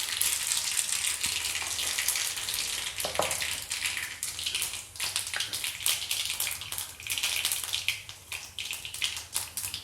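Mustard seeds and cumin seeds sizzling in a little hot oil in a kadhai, a steady hiss with many small pops and crackles as the tadka fries.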